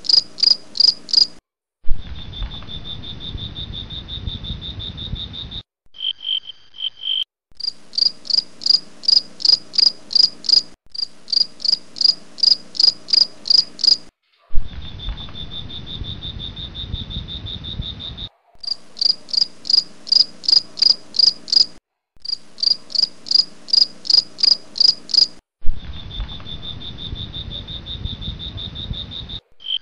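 Insects chirping, with rhythmic high chirps about three a second alternating with a steady high trill. The sound cuts abruptly between the two and repeats in identical segments, like a looped recording, with a sharp click at each join into the trill.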